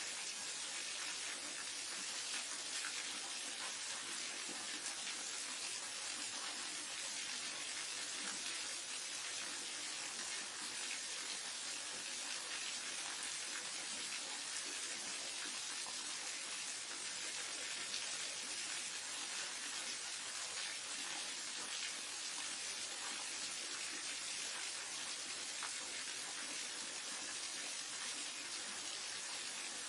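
Waterfall: a steady, even rush of falling water, hissy and unchanging throughout.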